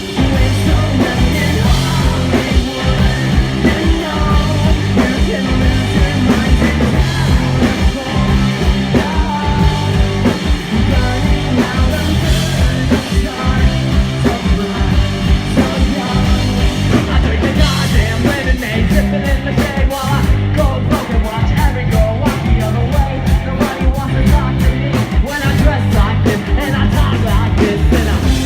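A punk rock band playing live at full volume, with distorted guitars, bass and a driving drum beat. About two-thirds of the way through, the cymbals start being struck about four times a second.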